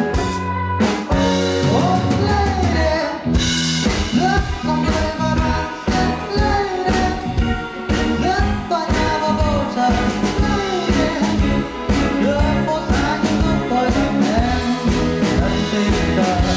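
Live rock band playing: a male singer sings over electric guitar, bass and a drum kit keeping a steady beat.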